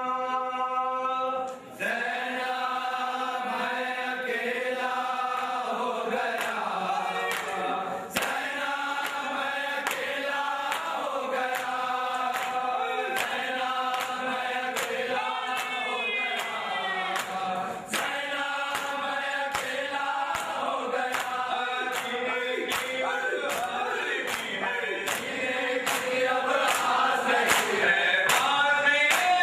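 Male voices chanting a Muharram mourning lament (noha) together, kept in time by a regular beat of sharp strikes. The chant grows louder near the end.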